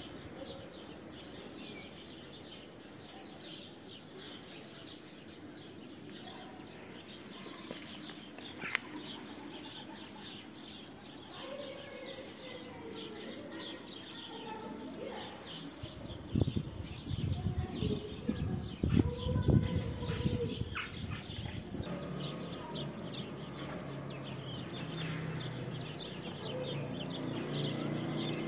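Small birds chirping in the background, many short high calls throughout. A loud spell of low rumbling and knocks comes about two-thirds of the way in, and after it a steady low hum.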